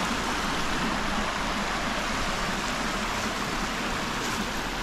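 Small forest stream running over rocks: a steady rush of water.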